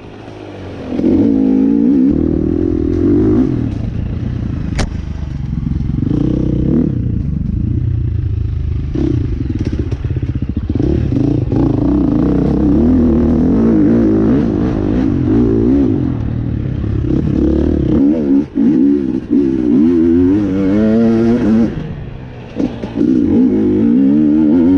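KTM enduro dirt bike engine under way on a tight trail, revving up and down over and over as the throttle is opened and shut, with a few brief drops off the throttle near the end.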